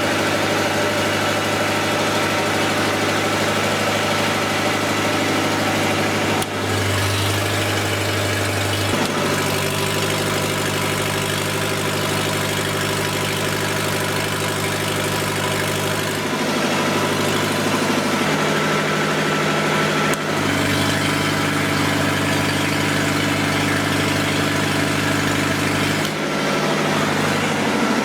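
Lister diesel generator engine running steadily under a heavy load of about 9 to 10 kilowatts. It is loud because no exhaust muffler is fitted yet. Its tone changes abruptly a few times along the way.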